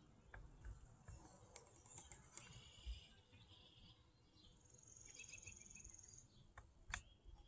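Near silence, with faint high-pitched chirping and trilling from wildlife along the river. One buzzy trill lasts about a second past the middle, and a sharp click comes near the end.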